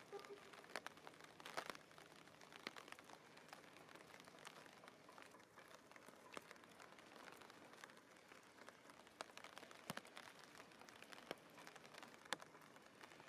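Faint rain: scattered drops tapping close to the microphone, a few irregular ticks a second, over a quiet hiss.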